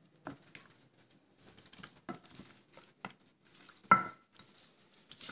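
Raw chicken pieces being rubbed and squeezed by hand with spice paste in a bowl: irregular wet squelches and soft slaps. About four seconds in there is one sharper knock against the bowl that rings briefly.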